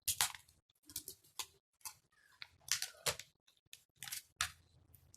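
Thin plastic protective wrapping being peeled and pulled off a new smartphone: a series of short, irregular crackles and rustles.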